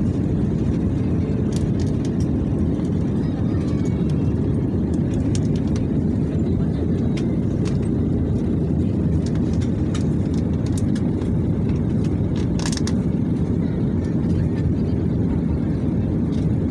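Steady roar of an airliner in flight heard from inside the cabin: engines and rushing air, with a few light clicks.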